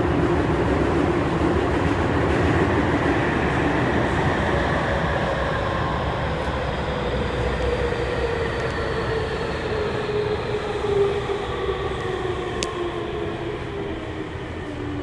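Tokyu 3000 series train heard inside the car, running on its original, un-updated VVVF inverter software: the inverter and traction-motor whine sounds in several tones that fall steadily in pitch as the train slows, over wheel and rail noise, growing gradually quieter. One sharp click near the end.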